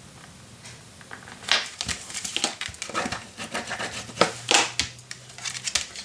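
Cardstock and paper being handled on a craft table: a quick, irregular run of rustles, scrapes and taps that starts about a second and a half in.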